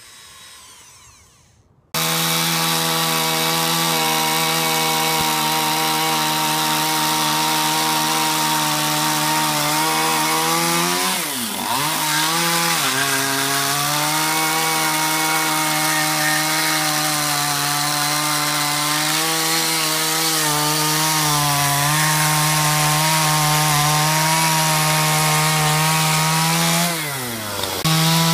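Stihl two-stroke chainsaw running at high revs while carving into a wooden statue block, starting abruptly about two seconds in. The engine pitch sags and recovers twice, around eleven seconds and near the end, as the throttle is eased and opened again.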